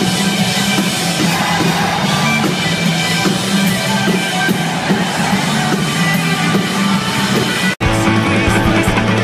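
Live band music: electric guitar played over a drum kit. Near the end the sound drops out for an instant and jumps to a different live recording.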